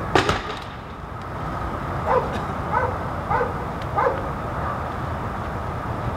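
A sharp crack at the very start, then a dog barks four times, starting about two seconds in, over a steady low rumble.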